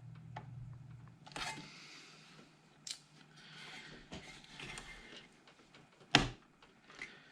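DDR4 RAM stick being pressed into a motherboard memory slot: faint handling and scraping with a few small clicks, then one sharp click about six seconds in as the slot's retention latch snaps shut.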